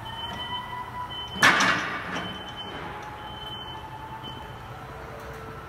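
Compact Mariotti electric forklift driving off, its motor giving a steady hum and a faint whine that sinks slightly in pitch, with a thin high tone that drops out now and then. About a second and a half in there is a single loud, short burst of noise that fades over about half a second.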